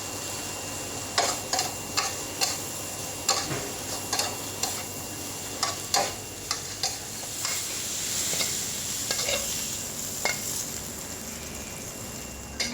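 Food sizzling steadily on a hot pan, with a dozen or so irregular sharp clacks and scrapes of a metal spatula against the pan as it is stirred and turned.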